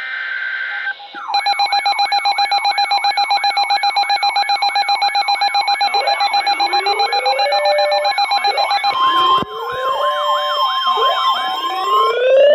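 The last burst of an Emergency Alert System data header, a short buzzy screech, then a loud layered alert: rapidly pulsing electronic tones with a fast yelping siren, joined about six seconds in by sirens winding up. About nine seconds in a steady weather-radio alert tone takes over under the sirens.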